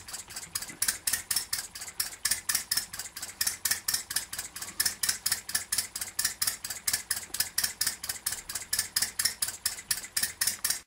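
Two-cylinder four-stroke hot bulb model engine running steadily on turpentine under flyball-governor control, its moving parts giving an even, rapid ticking of about five clicks a second over a low hum.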